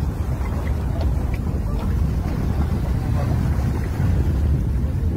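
Wind buffeting the microphone: a steady low rumbling noise throughout, with no distinct events.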